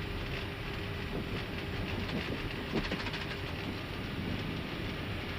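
Steady cockpit noise of an Airbus A319 taxiing on one engine with the APU running: an even rumble and hiss under a faint steady hum, with a few light knocks about one to three seconds in.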